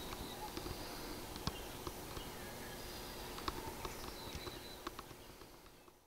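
Faint outdoor background hiss with scattered light clicks and ticks and a few short, faint high peeps, fading out near the end.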